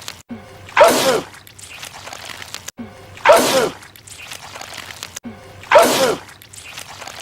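A man's loud sneeze, the same one looped three times about two and a half seconds apart. Each is a sharp burst ending in a falling "choo".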